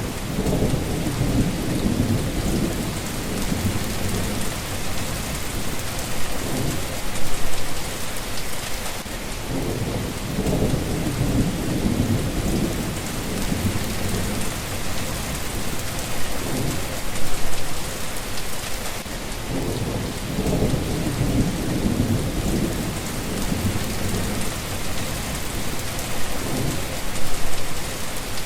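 Steady rain falling in a thunderstorm, with low rolls of thunder rumbling up and fading about every ten seconds.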